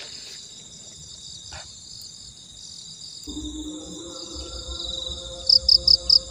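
Steady shrill chorus of crickets and other insects. About halfway in, soft background music with held notes comes in, and near the end four loud, quick high chirps stand out.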